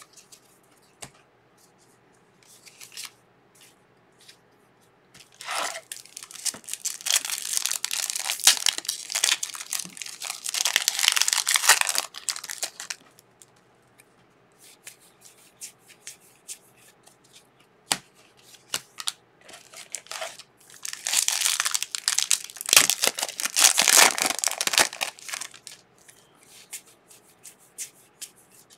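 Trading card pack wrappers being torn open and crinkled in two long spells, one starting about five seconds in and one about twenty seconds in. Between them come light ticks of cards being flicked through by hand.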